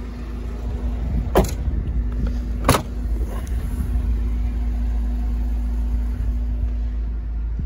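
Two sharp knocks about a second and a half apart from a Mercedes B 170's rear door and tailgate being handled, over a steady low hum.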